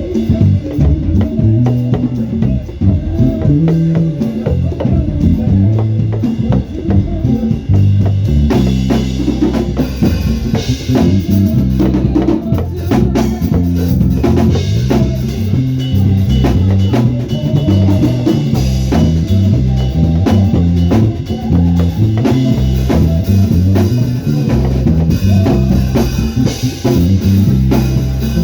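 Up-tempo praise music: a drum kit with a bass line moving underneath.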